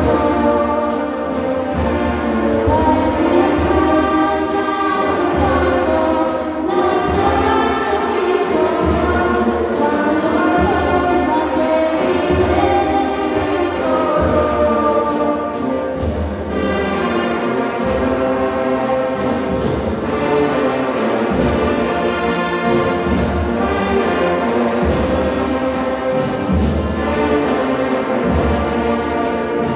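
Brass band playing a melody of sustained, full chords over a steady drum beat, echoing in a large hall.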